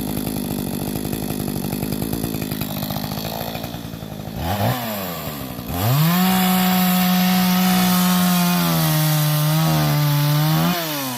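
Two-stroke chainsaw idling roughly, then revved up and held at full throttle for about five seconds while cutting a log, its pitch sagging a little under load before it is let off near the end. This is the saw's test run after its thrown chain was re-tensioned.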